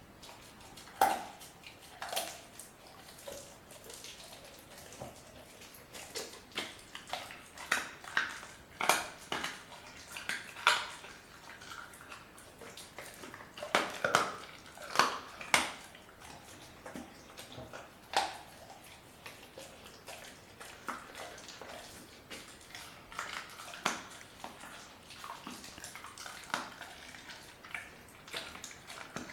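German Shepherd puppy chewing a raw chicken quarter: irregular crunches of bone and wet chewing, in clusters with short pauses between.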